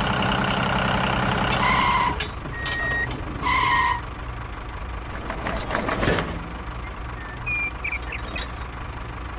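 Tractor engine running steadily, with two electronic reversing beeps about two and three and a half seconds in. After the beeps the engine is quieter, and there is a sharp click about six seconds in.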